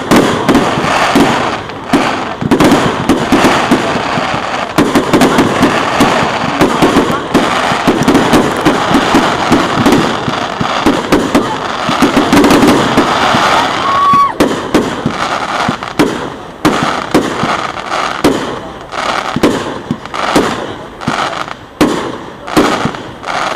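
Fireworks display: a dense barrage of crackling and bangs, then from about midway a run of separate sharp bangs about two a second. A brief whistle sounds about halfway through.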